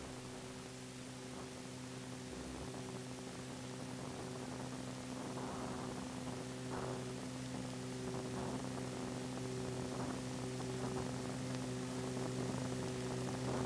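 Steady electrical mains hum under a layer of hiss, creeping slightly louder, with no other clear sound.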